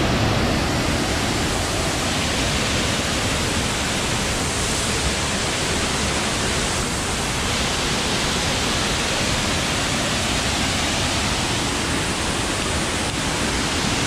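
Waterfall pouring over a rock ledge into a plunge pool, a steady, unbroken rush of water.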